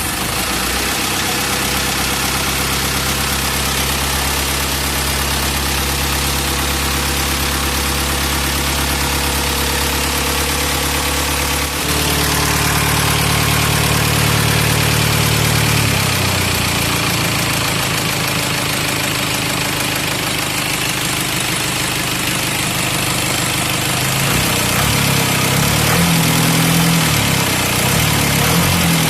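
Isuzu 4HF1 four-cylinder diesel engine idling just after being started. It has had a valve tune-up to cure sluggish running and hard starting. Its speed steps up and it gets louder about twelve seconds in, settles back a few seconds later, and rises again and runs less evenly near the end.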